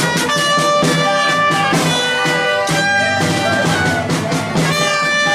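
Live band music: instruments holding sustained melody notes over a steady drum beat.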